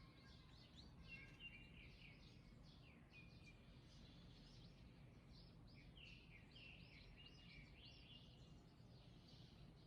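Faint birdsong: birds chirping and trilling in quick short phrases throughout, over a low steady rumble.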